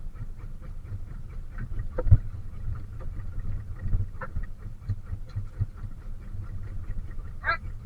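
Fishing boat's engine running steadily with a fast, even ticking over a low rumble, and a single knock about two seconds in.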